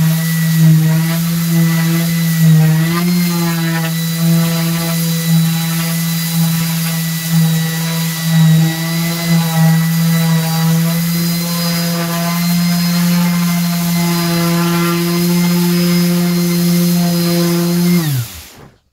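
Electric random orbital sander running steadily, sanding the end-grain face of a wooden butcher block with a steady hum. Near the end it is switched off and its hum falls in pitch as the motor winds down.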